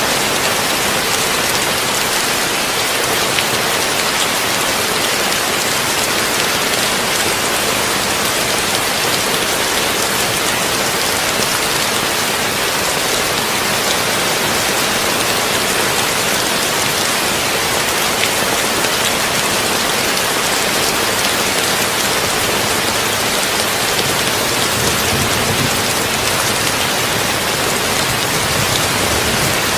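Heavy rain drumming steadily on a tin roof, a dense even hiss dotted with fine drop ticks. A low rumble swells near the end.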